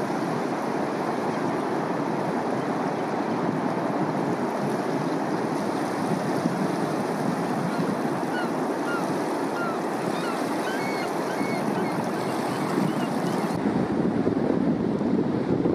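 Steady noise of surf and wind on the beach, with a scatter of short, high bird chirps through the middle stretch. Near the end the sound changes abruptly to a deeper, fuller surf noise.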